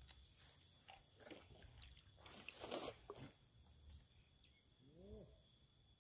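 Near silence by the water: faint rustles and small handling noises, the loudest a brief noisy rustle about halfway through. A short faint rising animal call sounds about five seconds in.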